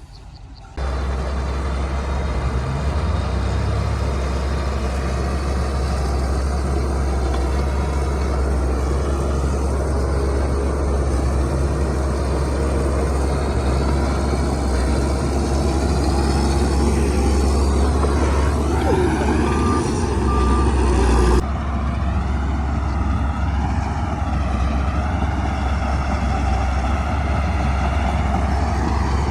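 Heavy diesel earthmoving machinery running steadily under load, a strong low engine drone that sets in abruptly about a second in and changes suddenly about two-thirds of the way through.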